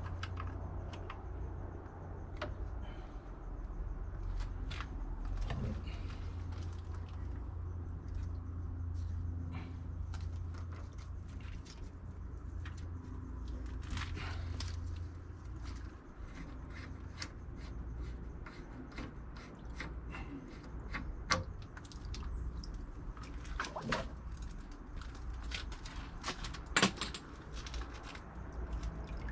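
Scattered clicks and knocks of hands-on work, with a few sharper knocks in the second half, over a steady low rumble that eases about halfway through.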